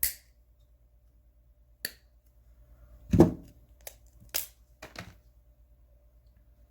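Handling noises from a hand ratchet being picked up and turned over: a few separate sharp clicks and a dull thump about three seconds in.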